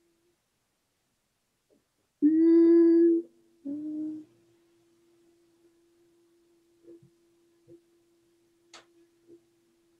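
A woman hums one held note for about a second, then a shorter, softer second hum, as a voice-healing tone for the solar plexus chakra. A faint steady pure tone from a tuning fork rings on beneath the hums and after them, with a few faint clicks near the end.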